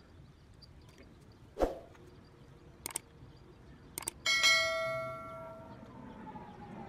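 Subscribe-button sound effect: two sharp clicks, then a bright notification-bell ding that rings out and fades over about a second. Before that, a single thump about a second and a half in.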